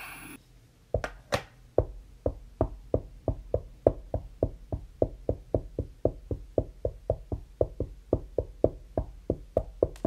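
A steady series of sharp knocks, about three a second, starting about a second in.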